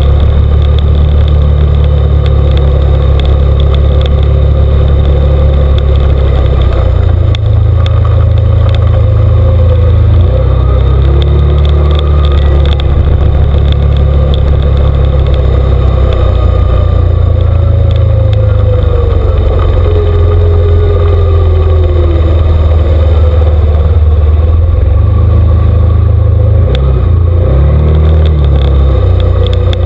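Engine of an off-road vehicle running under way on a dirt trail, a loud steady drone that shifts up and down several times as the throttle changes.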